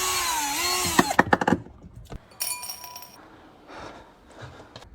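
Electric screwdriver running while backing out a screw, its whine dipping in pitch under load before it stops about a second in. A few sharp clicks follow, then a short burst of noise near three seconds in.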